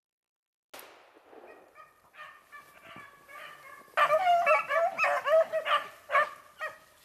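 Beagles baying on a rabbit's trail: a faint, drawn-out hound cry at first, then several dogs much louder and overlapping from about four seconds in.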